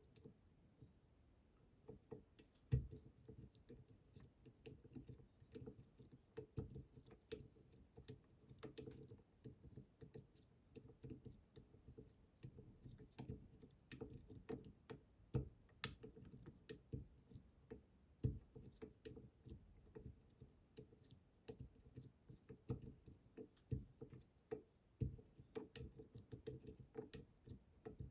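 Small, irregular metallic clicks and taps from lockpicking tools working the pins of a Bramah-style pump lock. The heavily tapered pins are pushed down over and over, with a few louder knocks among the clicks.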